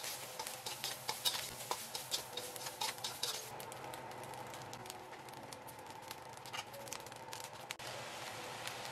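Metal spatula scraping and stirring rice in a wok over a steady sizzle of the rice frying. The scrapes come thick for about the first three seconds, then thin out to an occasional scrape over the sizzle.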